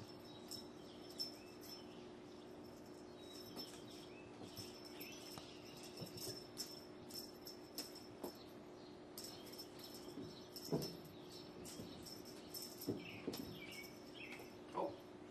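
Cats batting and pouncing at a dangling wand toy on carpet: soft scrabbles, rustles and light taps over a steady low hum, with a few louder knocks late on and faint high chirps.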